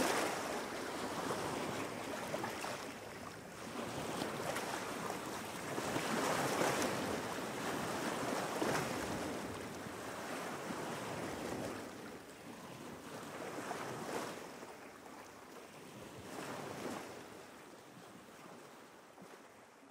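Sea waves washing in and drawing back in slow swells every few seconds, fading out near the end.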